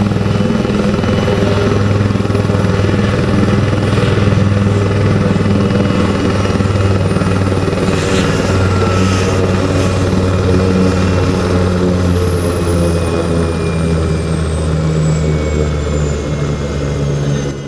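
An Indian Army HAL Dhruv helicopter running on the ground, its rotor making a loud, steady rapid beat over the turbines. A high turbine whine slowly falls in pitch through the second half.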